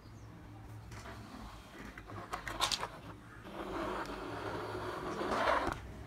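Sharp plastic clicks from a toy excavator among plastic building blocks, then a rough rolling scrape lasting about two seconds as the toy's plastic crawler tracks are pushed across a wooden tabletop.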